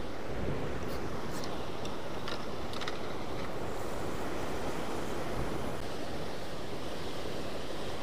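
Sea surf breaking and washing against a rocky cliff base below, a steady rushing wash of water.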